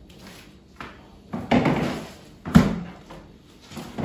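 A few knocks and a short rustle, with one sharp thud about two and a half seconds in: household handling sounds, like a drawer, cupboard door or lid being worked.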